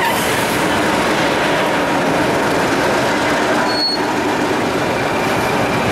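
Class 31 diesel locomotive, its English Electric V12 diesel engine running steadily at idle at close range.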